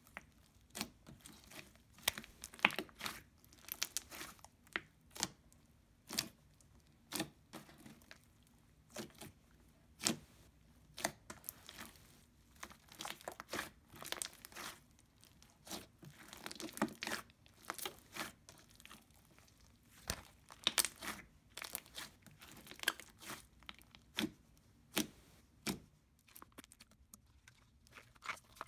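Slime being kneaded, stretched and folded by hand, giving irregular sticky pops, clicks and crackles, about one to three a second.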